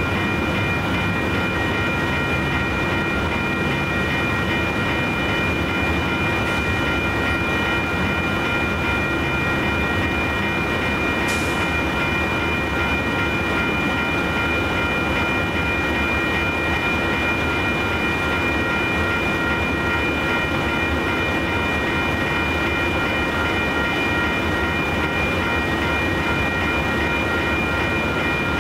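Freight train of intermodal well cars rolling steadily past at a grade crossing, a continuous rumble of wheels on rail. Several steady high-pitched tones ring over it.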